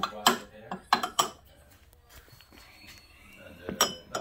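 Small glass espresso cup being set down and shifted under the portafilter on a scale: several sharp clinks and knocks of glass against the machine and tray, the loudest near the end.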